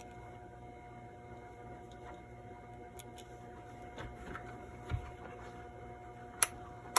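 Small clicks and taps of batteries and meter test leads being handled, the sharpest a little after six seconds, over a faint steady hum.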